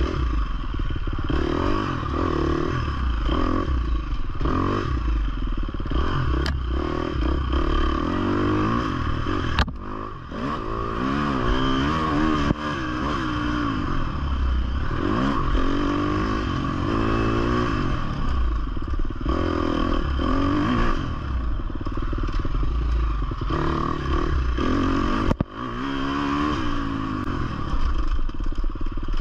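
2020 Husqvarna 350 FC's four-stroke single-cylinder engine revving up and down as the dirt bike is ridden hard over a rough trail, with clatter from the bike over the terrain. The throttle is briefly chopped about ten seconds in and again near the end.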